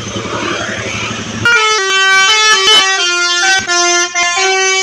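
A tour bus's engine is running. About one and a half seconds in, the bus's telolet horn starts playing a loud melody of quickly changing notes.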